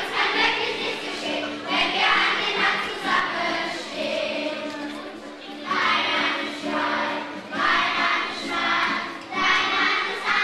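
Children's choir singing a song in phrases.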